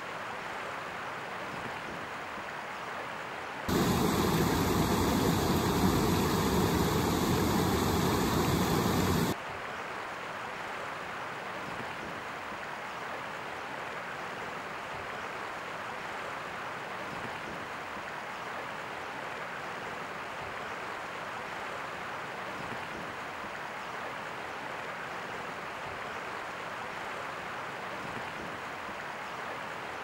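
Shallow stream running over rocks, a steady rush of water. From about four seconds to nine seconds a louder, fuller rush of water cuts in, then drops back abruptly.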